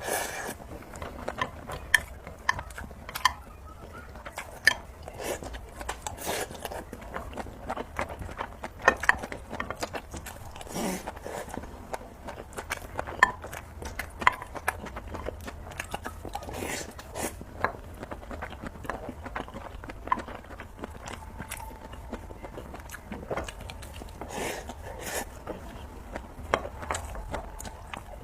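A person eating noodles close to the microphone: chewing and biting, with many irregular sharp clicks.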